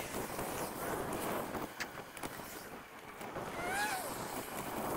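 Wind rushing over the microphone of a bike-mounted camera while riding a bicycle fast, with road and tyre noise underneath. A couple of sharp clicks come around two seconds in, and a short high voice-like sound rises and falls near the end.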